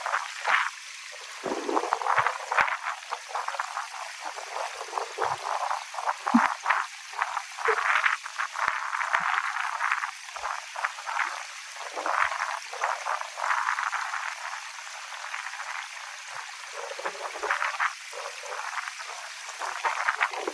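Water gurgling and splashing in a small mountain stream: a dense, irregular babble that swells and fades in patches.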